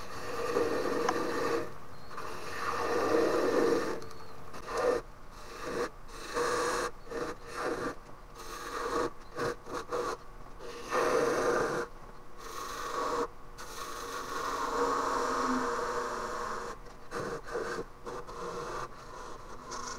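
Narrow turning tool cutting green ornamental cherry at the foot of a bowl spinning on a wood lathe: a rasping scrape in many short stop-start strokes as the tool is pushed in and eased off, over a faint steady lathe hum.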